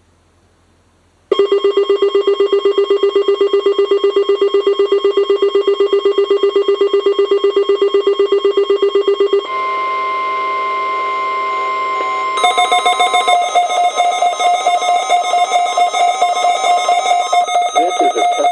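Weather radio alert tones for a weekly test. About a second in, a loud, rapidly pulsing electronic alarm starts and runs for about eight seconds. It gives way to a steady single tone near 1 kHz, the weather radio warning alarm tone, for about three seconds. Another pulsing alarm then starts and carries on as a voice begins near the end.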